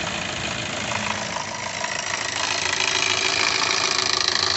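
Hyundai Creta 2.0 four-cylinder petrol engine running, with the noise that the owner films as a suspected fault. It is a dense, even mechanical sound that grows a little louder about two seconds in.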